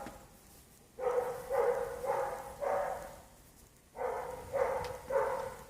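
An animal calling in two runs of short, evenly spaced calls, four and then three, each call about half a second apart.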